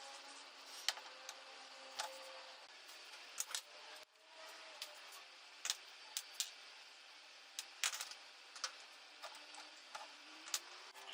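Scattered sharp light clicks and taps at irregular intervals over a quiet, faint steady background.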